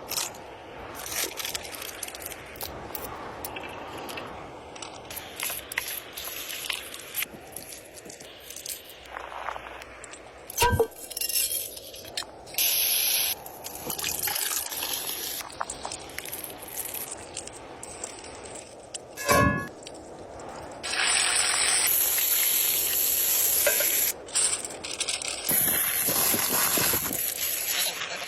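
Kitchen cooking noises: long stretches of steady hiss, loudest in the last third, with scattered knocks and clicks from utensils.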